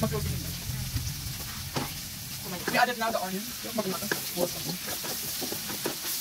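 Food sizzling in a hot frying pan while a wooden spatula stirs it, with repeated short knocks and scrapes of the spatula against the pan.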